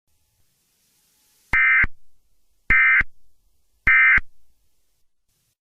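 Emergency Alert System end-of-message signal: three identical short bursts of digital data tones, a little over a second apart, marking the end of the alert.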